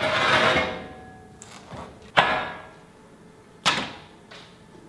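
Steel plate being handled: a rattling scrape with metallic ringing as a sheet is dragged out of a stack of plate, then two sharp ringing clanks about a second and a half apart as plate is set down on the steel slats of a CNC plasma table.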